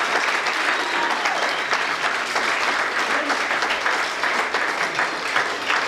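A room full of people clapping steadily, applauding a newly married couple.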